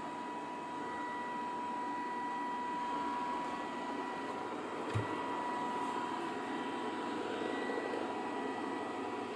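Robotic vacuum cleaner running, a steady whirring with a thin high motor whine, and a single soft knock about five seconds in.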